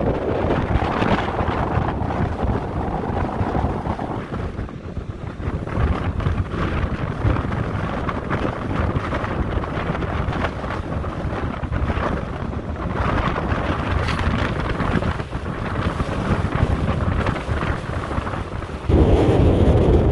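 Strong wind buffeting the microphone in gusts, a dense low rumble that swells and eases and gets suddenly louder near the end.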